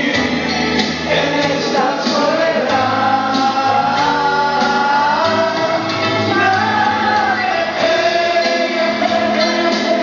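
A man singing a slow Spanish-language ballad through a microphone over backing music, holding long notes with vibrato.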